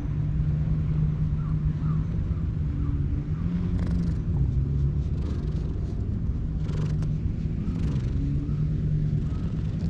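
Cat purring steadily while being stroked, a low drone that swells and dips in roughly second-long stretches. A few brief rustles of fur come in about four, seven and eight seconds in.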